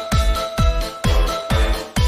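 Upbeat electronic dance music with a kick drum on a steady beat, about two beats a second, under held synth tones.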